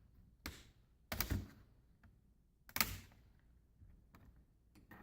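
Plastic bezel of a Chromebook screen clicking and snapping as it is pried off the display with a plastic pry tool. There are three sharp clicks, about half a second, a second and a quarter, and just under three seconds in, then a few faint ticks.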